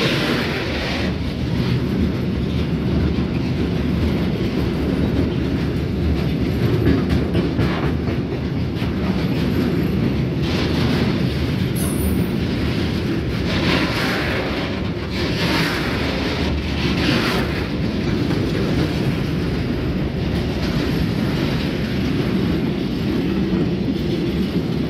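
Mixed freight train rolling past, a steady rumble with wheels clattering over the rail joints.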